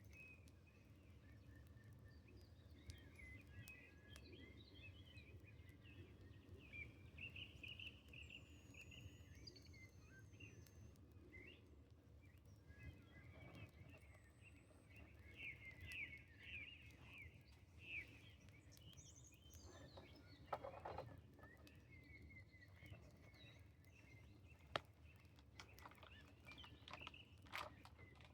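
Faint birds chirping in short, scattered calls over a low steady rumble, with a few sharp clicks in the second half.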